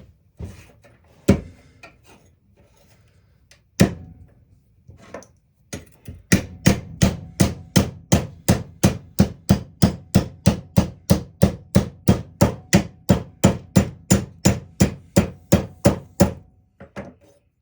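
Hand hammer striking a metal part to straighten it: two single blows, then a steady run of about three blows a second for some ten seconds.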